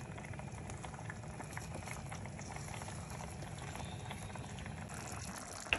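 Pot of meat broth for borscht at a boil, bubbling steadily, with a short click near the end.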